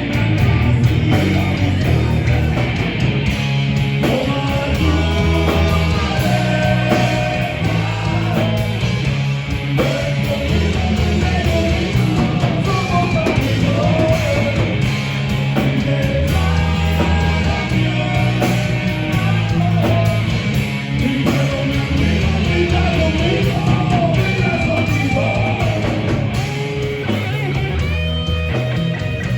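Rock band playing live: electric guitar, bass and drums, with a singing voice carrying the melody.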